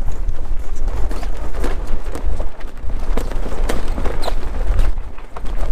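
Wind buffeting the microphone with a heavy rumble, mixed with irregular knocks and clatter on a sailboat's deck at sea.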